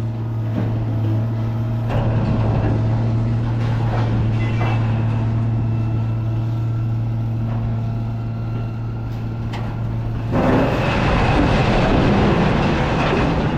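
Truck driving: a steady low engine drone, which gives way about ten seconds in to louder, rougher road and rattle noise.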